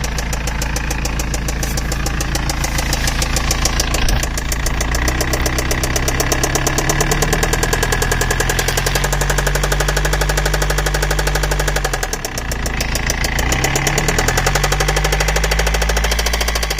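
BMW M47TU2D20 four-cylinder turbodiesel engine running with a fast, even knocking. The engine speed rises about five seconds in, dips around twelve seconds and picks up again.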